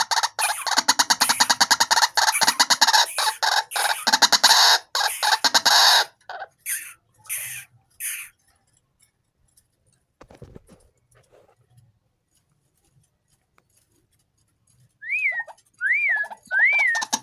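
White-breasted waterhen calling: a fast, loud run of harsh, rapidly repeated croaking notes, then a few single calls before it stops. Near the end a series of short whistled notes begins, each rising then falling in pitch, about one a second.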